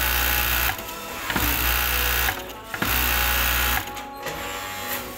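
ARAY high-speed flatlock sewing machine, driven by a direct-drive motor, stitching fabric in three short runs of about a second each and stopping briefly between them.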